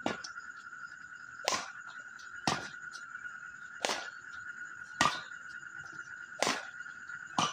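A ball being hit back and forth in a rally: about seven sharp hits, a second or so apart, over a steady high-pitched whine.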